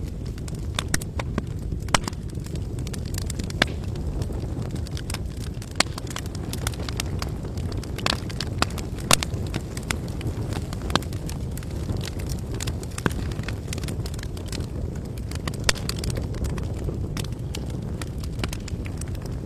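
Wood campfire crackling: irregular sharp pops and snaps, a few louder than the rest, over a steady low rumble.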